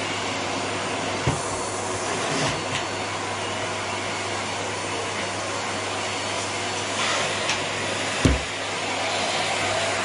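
Canister vacuum cleaner running steadily with a low hum. There is a light knock about a second in and a louder thump near the end.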